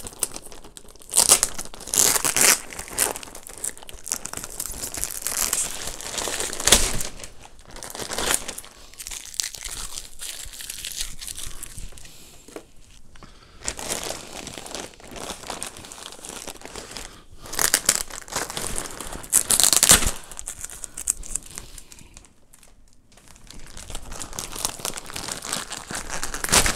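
Plastic courier mailer bag being crinkled and torn open by hand: irregular crinkling with several louder rips of the plastic.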